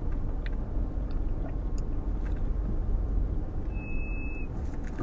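Steady low rumble of a car cabin, with a few faint ticks and one brief high-pitched beep about four seconds in.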